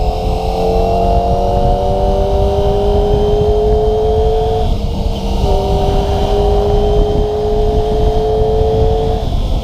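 Kawasaki ZX-25RR's 250 cc inline-four engine pulling under load, its pitch climbing steadily, with an upshift about halfway through and another near the end, over wind rush on the microphone.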